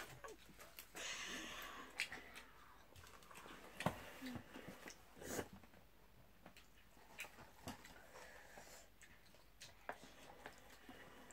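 Quiet eating sounds: noodles being chewed, with scattered soft clicks and taps.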